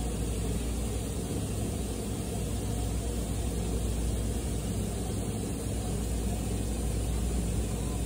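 Steady low rumble with a faint mechanical hum, like an engine or traffic running, unchanging throughout; no birdsong stands out.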